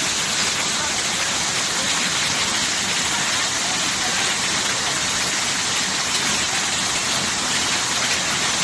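Several small waterfalls pouring into a rock pool: a steady rushing of falling water.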